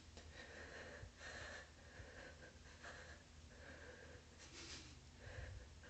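Near silence, with faint, irregular breathing sounds in a small room.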